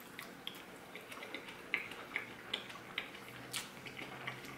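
Close-miked eating: a person biting into and chewing a taco, with irregular small clicks and smacks of the mouth and food.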